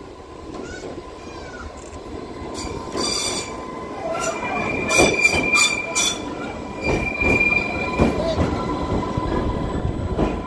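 Island Line Class 484 electric train pulling in past at low speed, growing louder as it comes alongside. Its wheels give short high squeals, once about three seconds in and four times around the middle, then a held squeal for a few seconds.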